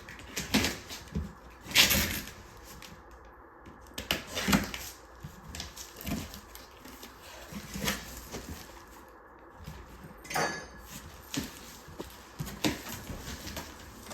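A 3D printer's cardboard shipping box being opened and handled: scattered knocks, rubs and scrapes, with louder knocks about 2 and 4.5 seconds in and a short rasp about 10 seconds in.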